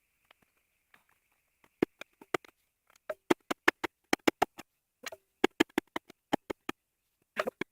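Digging tool striking hard, rocky ground in quick runs of sharp chops, several a second, starting about two seconds in.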